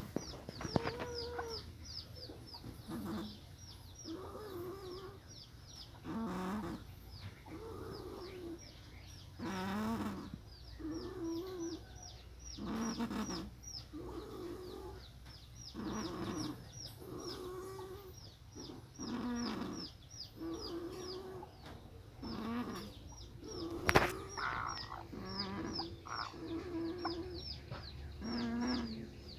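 A chicken making a snore-like sound over and over, in a steady rhythm every couple of seconds, like a man snoring. A single sharp click stands out about three-quarters of the way through.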